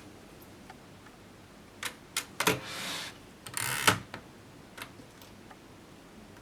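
1939 Erika M portable typewriter handled between lines of typing: a few separate mechanical clicks, then two short rasping slides about two and a half and three and a half seconds in, the second the louder. Then a few light clicks and a sharp click at the end. This is typical of the carriage being returned and the paper advanced.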